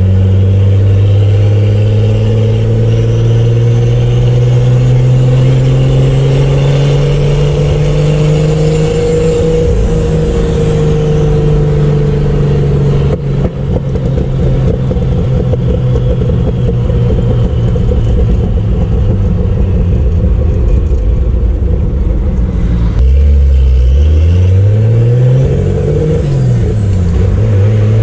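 Turbocharged Chevrolet Opala six-cylinder engine running while the car drives. Its pitch climbs slowly for about ten seconds and then holds steady. A little after twenty seconds it drops abruptly, swings down and up again, and is rising at the end.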